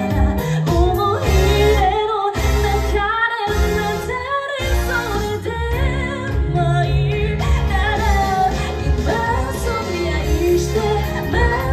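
A woman singing a song live into a handheld microphone, her voice carried over amplified backing music with a steady bass.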